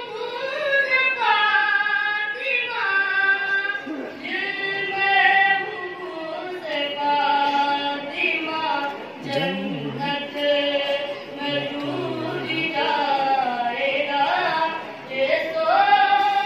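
A boy chanting a devotional qasida into a microphone, in long held melodic phrases that rise and fall in pitch, with no instruments.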